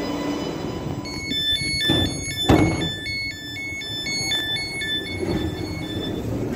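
Class 484 train door warning tones: rapid electronic beeping that steps back and forth between two pitches for about four seconds, with one sharp knock partway through, over a steady low hum.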